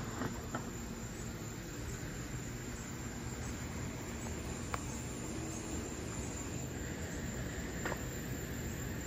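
Evening insects chirring as a thin, steady high tone over a low steady outdoor rumble, with two faint clicks about halfway through and near the end.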